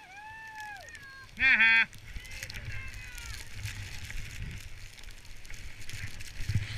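People calling out among the trees: a rising-and-falling call, then a loud held shout about a second and a half in, and a falling call just after. Then skis running through deep powder snow with wind rumbling on the microphone, growing louder, with a few low thumps near the end.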